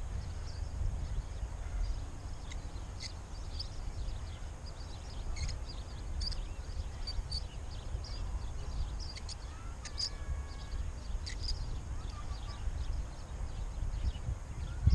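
Outdoor ambience of songbirds chirping and calling, many short high chirps scattered throughout, with a few clearer whistled calls about ten seconds in, over a steady low rumble of wind on the microphone.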